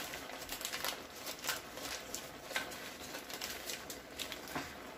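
Pan of mussels and shrimp cooking in wine, sizzling with irregular crackling pops as margarine is dropped in, and the paper wrapper rustles in the hands.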